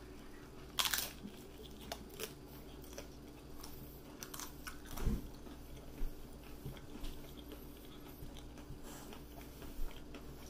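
A person bites into a hard, fried taco shell with a sharp crunch about a second in, then chews with scattered small crunches, one louder crunch near the middle.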